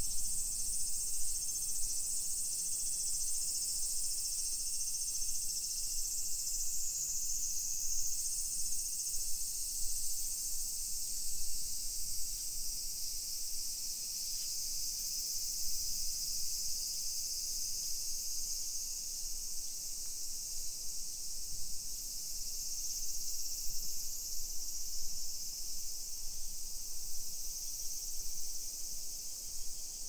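Chorus of summer cicadas: a steady, high-pitched, continuous buzzing drone.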